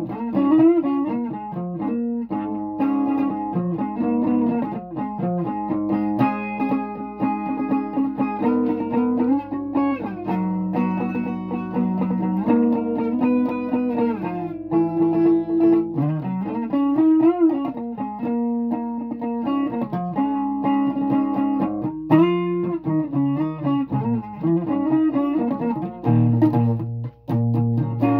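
Guitar playing a melody of held single notes, several of them bent up and back down in pitch.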